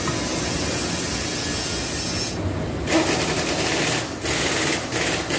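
Ratchet wrench tightening the bolts of a car's rear wheel bearing hub, rasping in three strokes of about half a second to a second each from about three seconds in, over a steady background rush.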